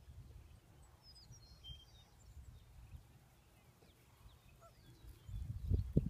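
Wind rumbling on the microphone, with a few faint, short, high bird chirps about a second in. The rumble grows louder near the end.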